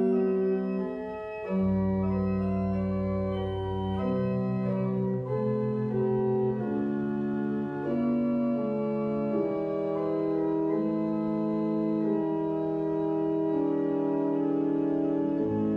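Church pipe organ playing the postlude: slow, sustained chords that change every second or two, with deep pedal bass notes coming in about a second and a half in and again near the end.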